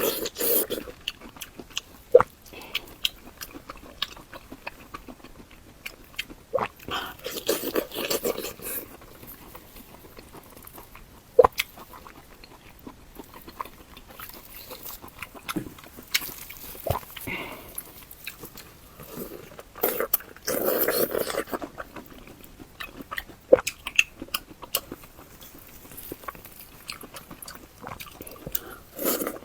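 Close-miked eating sounds: biting and chewing with sharp wet mouth clicks throughout, and two longer noisy slurping stretches, one about a quarter of the way in and one about two-thirds through.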